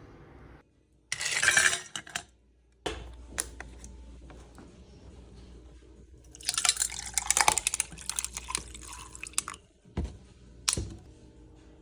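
Kitchen clatter: dishes and metal utensils clinking and rattling in two bursts, the second longer, then a couple of single sharp knocks near the end.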